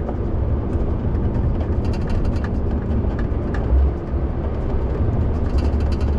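Steady low rumble of a lorry's engine and tyres heard inside the cab while driving along a motorway bridge, with a short louder low bump just before four seconds in.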